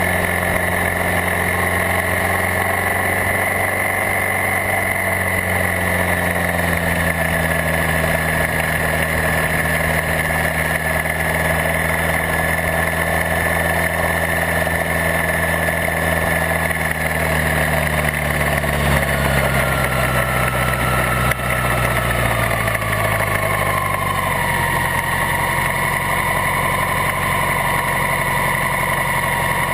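The Maverick flying car's engine, heard close up from behind, runs steadily on the road with a high whine above it. Over the second half its pitch falls gradually as the vehicle slows, and it settles to a lower, steady idle near the end as it comes to a stop in traffic.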